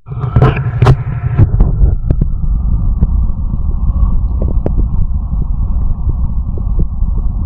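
Stomach growling: a pitched growl in the first two seconds, then a steady low rumble with a few faint clicks.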